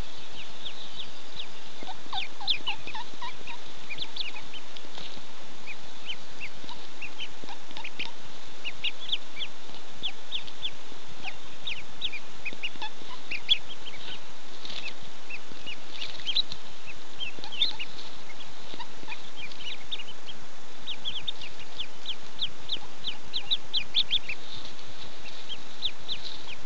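Ducklings peeping without pause, many short high-pitched peeps overlapping, over a steady background hiss.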